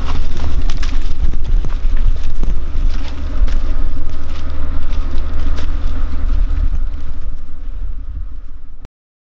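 Wind buffeting the microphone with a loud low rumble, over footsteps walking through dry fallen leaves; it cuts off suddenly near the end.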